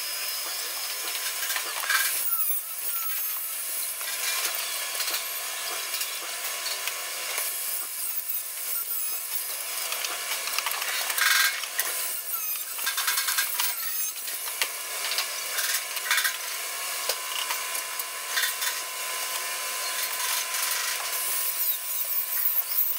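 Handheld angle grinder grinding a sheet-metal table frame in repeated passes, a harsh scraping that surges and eases, with a thin steady whine in the later part.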